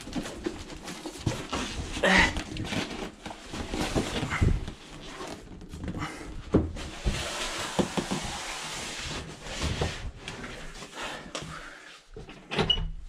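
Large cardboard bike box being carried and manoeuvred through a doorway and down a hallway: the cardboard scrapes and bumps against the door frame and walls in irregular knocks and rubs, with a longer rubbing stretch about seven seconds in.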